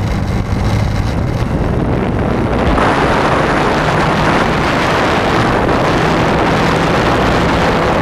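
Zenoah 20cc two-stroke gasoline engine of an RC biplane running hard, heard from an onboard camera with wind rushing over the microphone. It gets louder about three seconds in as the throttle opens for the takeoff.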